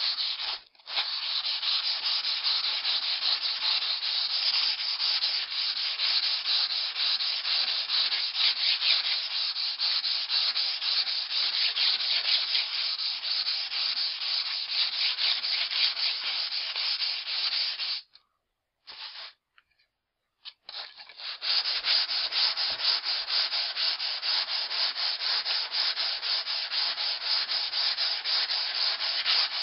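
Axe blade drawn back and forth over 320-grit wet-and-dry sandpaper on a foam mat, a steady rapid scraping that refines the edge after coarser 120-grit work. It stops for about two seconds around two-thirds of the way through, then starts again.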